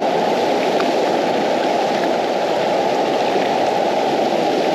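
Fast, shallow river rushing over rocks and riffles: a steady, even rush of water.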